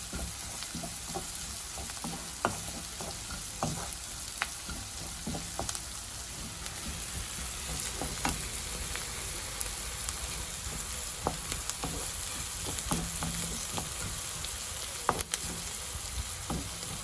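Chopped shallots, garlic, ginger, chili and curry leaves sizzling in hot oil in a pan as they are stirred, with a steady hiss and frequent short scrapes and taps of the spatula against the pan.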